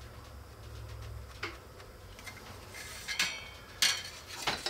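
Light handling sounds of a steel rule and mechanical pencil on a wooden workbench: a short scratchy stroke about three seconds in, then a few sharp metallic clicks near the end as the rule is lifted and set down.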